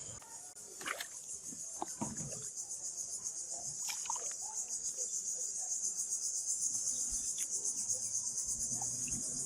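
Insects, crickets or similar, trilling steadily in a dense high-pitched chorus, with a few faint knocks in the first few seconds.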